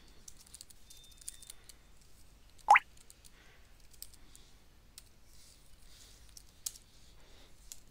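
Scattered clicks of typing on a computer keyboard. One short, louder rising chirp comes a little under three seconds in.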